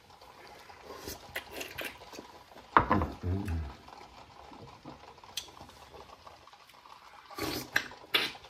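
Raw oyster shells clicking and scraping against each other and a wooden cutting board as they are handled, with a brief murmur of voice about three seconds in. Near the end comes a short run of wet noises as an oyster is slurped straight from its shell.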